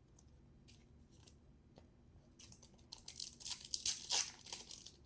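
Foil trading-card pack torn open and its wrapper crinkled: a few faint ticks, then from about halfway through a dense run of sharp crackling rips.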